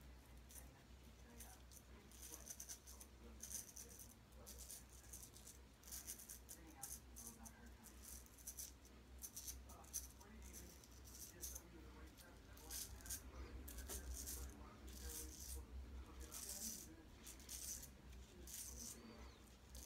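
George Butler Sheffield straight razor scraping through lathered stubble: short, faint rasping strokes repeated irregularly, over a low steady hum.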